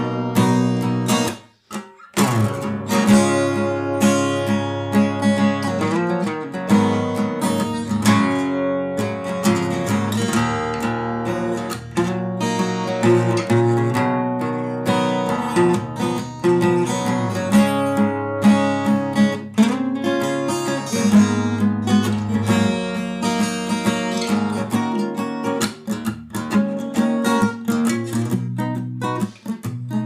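Background music of acoustic guitar strumming and picking chords, with a brief break about a second and a half in.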